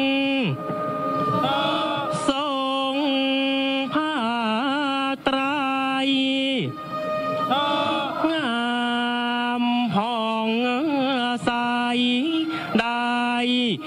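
Thai royal barge chant (kap he ruea): a single voice sings long held notes that waver and bend in ornamented turns, with a few brief sudden breaks.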